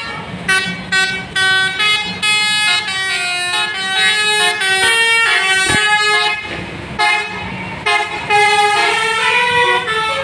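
A bus's 'basuri' musical horn playing a fast melody of short notes that change pitch one after another, with traffic rumbling underneath.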